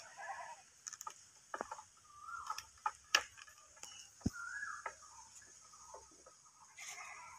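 Scattered sharp clicks and light knocks from a long fiberglass hot stick being handled and raised toward a pole-mounted transformer's fuse cutout, with short bird calls and a steady high hiss behind them.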